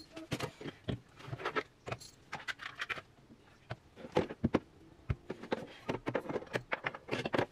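Toiletry bottles and tubes being picked up, shuffled and set down on bathroom cabinet shelves: an irregular run of light knocks, taps and clatters.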